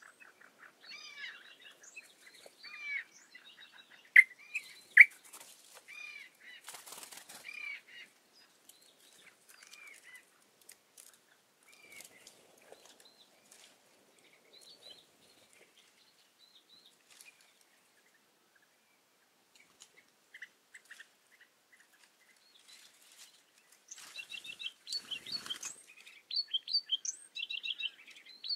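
A mix of small songbirds of arid scrub calling and singing: quick chirps and warbling phrases, with two sharp loud notes about four and five seconds in, a thinner spell in the middle, and a burst of fast chattering near the end. Two brief rustling noises break in, about seven seconds in and about twenty-five seconds in.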